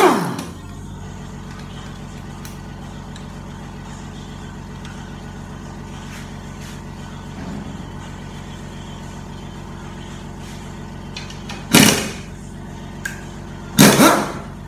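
Air impact wrench being run: a loud burst winding down in pitch at the start, then two short, loud bursts near the end as it is worked against bolts on an automatic transmission's aluminium housing. A steady low machine hum runs underneath.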